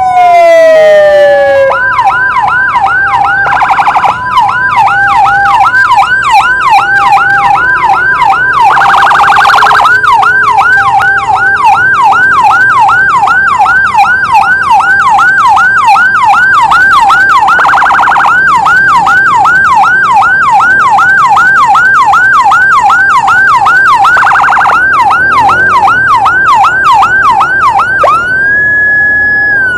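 Loud electronic emergency-vehicle siren. A falling wail at the start gives way to a fast yelp of rising sweeps, about two a second, broken a few times by short bursts of a faster warble. Near the end it holds a steady high tone.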